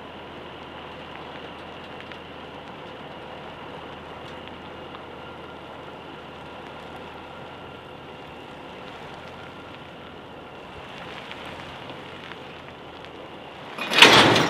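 Heavy truck slowly reversing a loaded low-loader trailer: a steady, even running noise with a faint steady tone. About fourteen seconds in, a sudden loud blast of air as the trailer stops, the air brakes being set.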